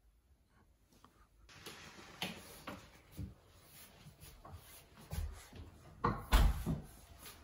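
Footsteps thudding on wooden stairs as people walk down, a few soft thuds and then a louder cluster near the end, over the rustle of a handheld camera on the move.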